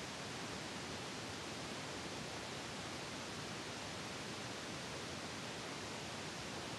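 Steady, even hiss with no distinct sounds in it: the recording's noise floor.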